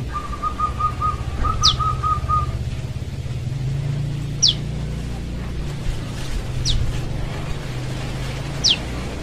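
A young prenjak lumut calls with sharp, high whistled notes that sweep quickly downward, four of them about two seconds apart. In the first couple of seconds a rapid string of short, lower notes repeats about five times a second, over a steady low hum.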